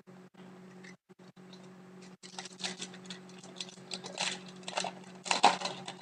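Crinkling and rustling of a hockey trading card pack and its cards being handled. It comes as a run of short, irregular crackles that starts about two seconds in and is loudest near the end.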